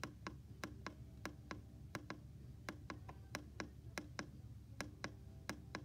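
Quick, irregular clicking, about four clicks a second, from the plastic arrow button of a Midland weather radio being pressed over and over to scroll through its county list.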